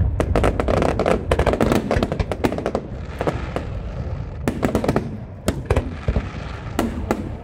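Aerial fireworks display: a dense, irregular run of sharp bangs and crackles from bursting shells.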